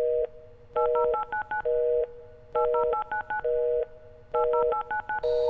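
Telephone keypad dialing tones: quick runs of short beeps, each run followed by a steady two-note tone of about half a second, the pattern repeating about every two seconds, three times over.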